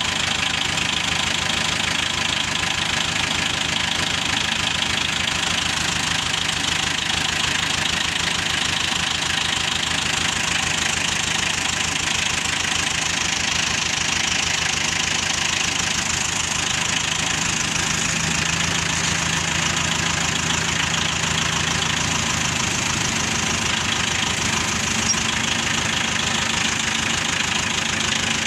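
Tractor engine idling steadily, a fast even run of low firing pulses.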